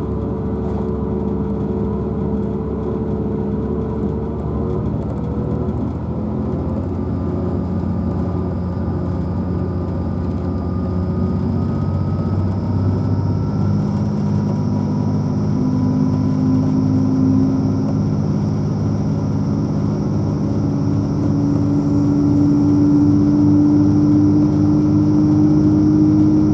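Class 180 diesel multiple unit's underfloor Cummins QSK19 diesel engine working under power as the train accelerates away from a station, heard inside the coach. It is a steady engine drone whose tones slowly climb in pitch and grow louder toward the end.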